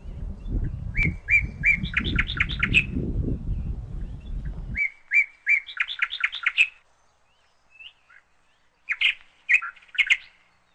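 A songbird singing three short phrases, each a few repeated notes followed by a quicker, higher run of notes. A low rumble underneath stops abruptly about five seconds in.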